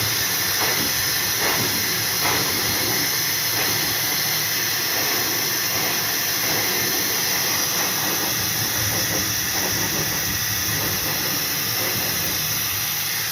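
Soft Times high-speed blow dryer running steadily on high, a loud, even hiss of rushing air.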